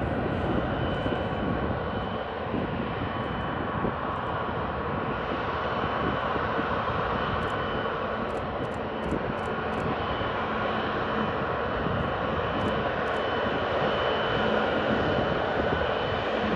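Boeing 777 jet engines running with a steady rush of noise and a faint whine.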